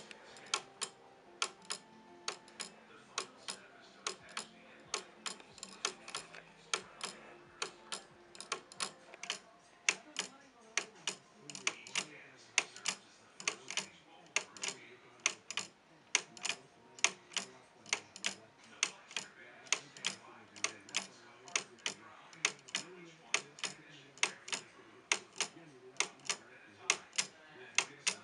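Wooden pendulum clock ticking: the anchor's pallets dropping onto the teeth of the wooden escape wheel give a quick, steady, even run of sharp ticks.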